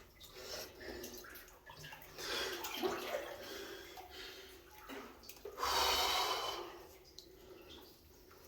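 Water sloshing and splashing around a person wading waist-deep through a flooded mine tunnel, with the loudest surge of splashing about six seconds in.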